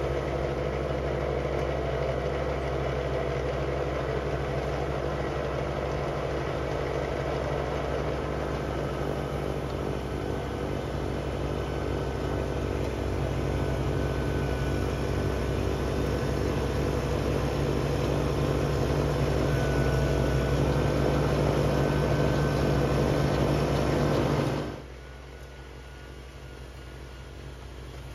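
Kubota BX2822A compact tractor's diesel engine running steadily under load while driving its front-mounted snowblower, louder as it comes close. About three-quarters of the way through it abruptly drops much quieter and more distant.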